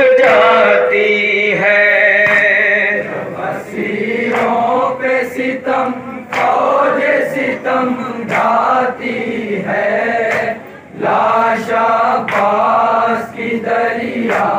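Group of men chanting an Urdu noha, a mourning lament, together in chorus.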